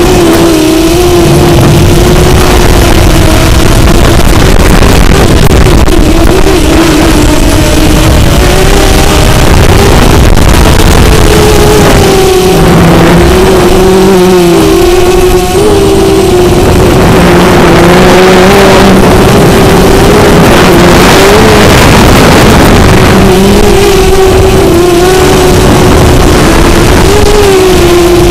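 Drone motors and propellers whining close to the onboard camera, a steady tone whose pitch wobbles up and down, over wind rushing across the microphone that grows heavier about two-thirds of the way through.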